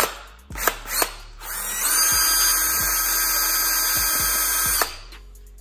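Cordless drill/driver running steadily for about three seconds, backing out the screw that holds the T-MAP sensor on a BMW N54 charge pipe, then stopping abruptly. A few knocks of handling come before it starts.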